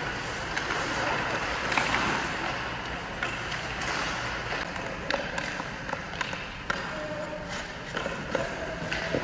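Hockey skate blades scraping and carving on rink ice, with scattered sharp clicks of a stick blade striking pucks and pucks knocking about.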